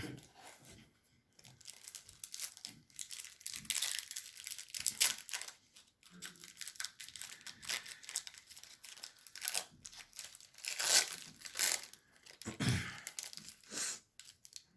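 Trading card pack wrapper being torn open and crinkled: a long series of short, crackling rustles, with a soft thump about twelve and a half seconds in.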